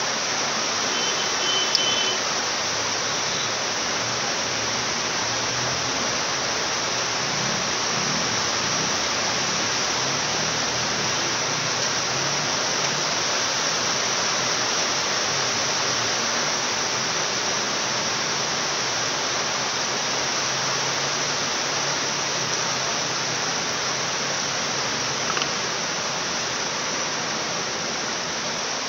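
Steady, even hiss throughout, with a faint click about two seconds in and another near the end.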